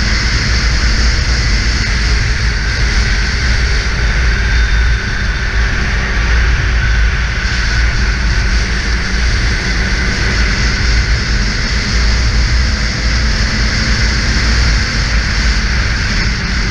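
Snowmobile running steadily at trail speed, its engine and track droning, with a low rumble of wind over the microphone.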